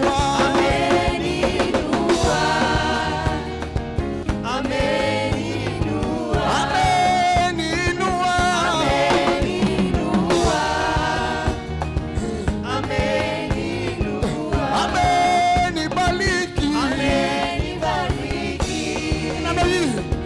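Gospel praise music: a group of singers over instrumental accompaniment, with long held sung notes.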